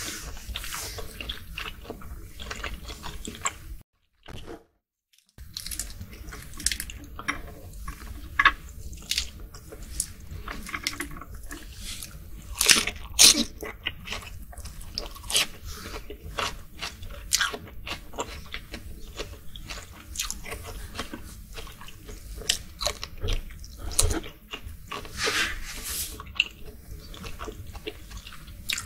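Close-miked chewing of shrimp: wet mouth clicks and crunchy bites, with the sound cutting out briefly twice about four seconds in.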